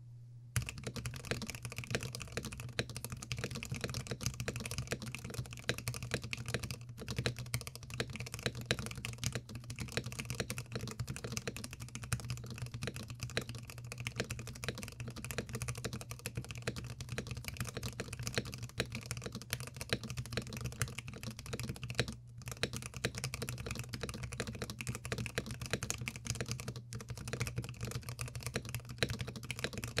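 Continuous fast typing on a Keychron Q1 CNC-aluminium mechanical keyboard with its gasket mount feature taken out, a dense run of keystrokes with a few brief pauses.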